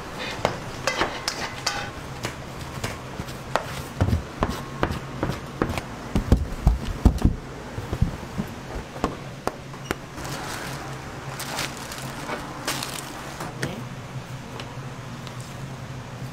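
Hand-prep sounds of croquette dough: a steel mixing bowl knocking and dough being pressed and kneaded by hand on a work surface. Scattered clicks and knocks throughout, with a run of heavier dull thumps in the middle.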